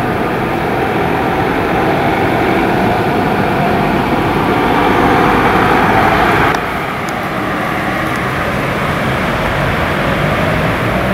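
Mercedes-Benz Sprinter ambulance driving off, its engine and tyres making a steady, loud vehicle noise. About six and a half seconds in the sound drops abruptly to the lower, steady road noise of a car driving along behind it.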